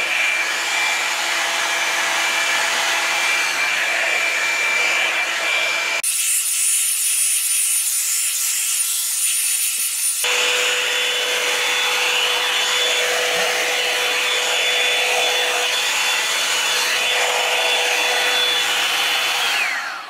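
Revlon One-Step hot-air dryer brush running, a steady rush of air with a thin motor whine. For about four seconds in the middle the sound turns thin and high, and just before the end the dryer is switched off and its whine falls away.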